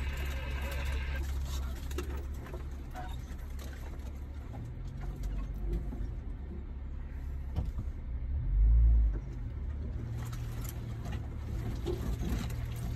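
Jeep Wrangler Rubicon crawling slowly on an overgrown trail, its engine and drivetrain a steady low rumble. Saw palmetto fronds and branches scrape and tick along the body, and there is one heavy low thump about eight and a half seconds in.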